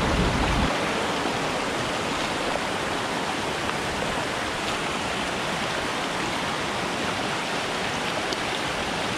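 Small mountain trout stream rushing over boulders and through riffles: a steady, even rush of water.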